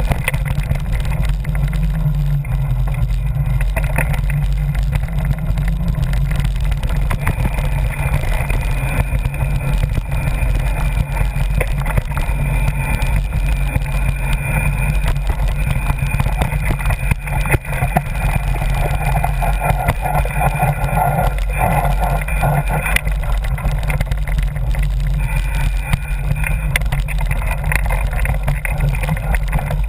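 Mountain bike riding fast down a dirt trail, heard through a camera carried by the rider: steady wind rumble on the microphone, with constant rattling and knocks from the bike and camera over the rough ground.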